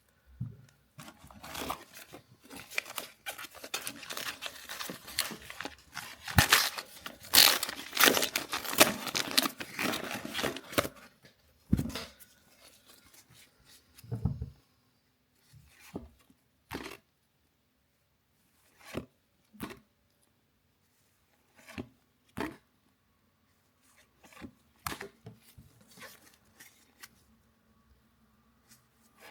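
A Panini Adrenalyn trading-card pack torn open, its wrapper crinkling and ripping for about ten seconds, then the cards handled with scattered short taps and slides.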